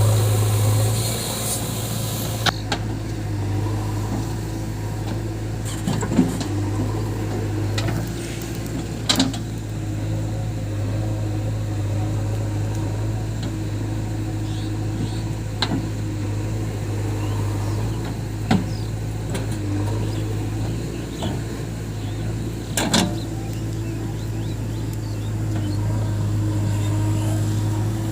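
Heavy diesel machinery engine running steadily, with a few short sharp knocks spaced several seconds apart.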